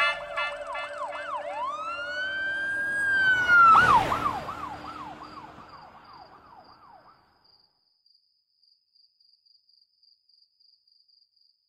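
Police siren alternating a fast yelp with a slower wail, fading away and gone about seven seconds in. A faint, high, pulsing chirp like crickets carries on after it.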